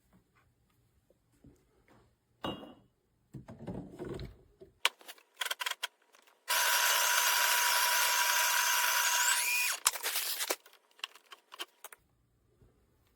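Built-in coffee grinder of an espresso machine running steadily for about three seconds, ending with a brief rise in pitch before it stops, with clicks and knocks of handling before and after.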